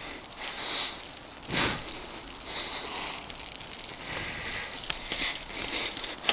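Mountain bike rolling along a dirt singletrack: steady tyre noise on packed dirt and dry leaves, with a thump about one and a half seconds in and a few sharp clicks near the end.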